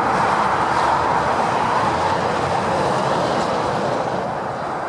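Steady rush of fast motorway traffic, the tyre and engine noise of passing lorries and cars, easing a little near the end.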